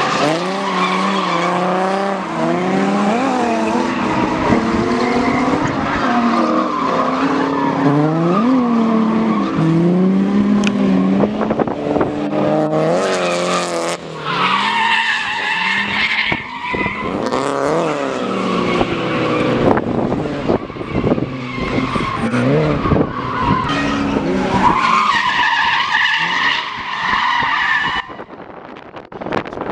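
Drift car engines revving hard, their pitch swinging up and down with the throttle, while tires squeal in two long screeches, one about halfway through and another near the end.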